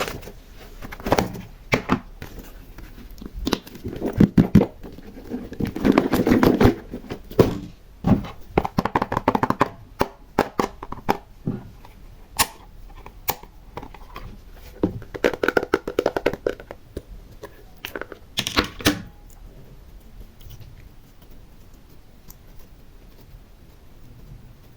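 Hands working slime with small decorations in it: irregular bursts of sticky crackling, tearing and clicking, with soft thunks. It stops about three quarters of the way through.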